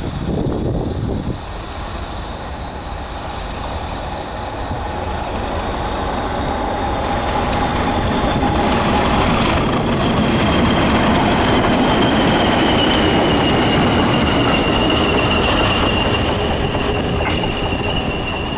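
English Electric Class 37 and Class 20 diesel locomotives working in multiple, passing with a freight: the engines run loud, swelling to their loudest about halfway through as they go by, with a high steady whistle above that droops slightly in pitch in the second half.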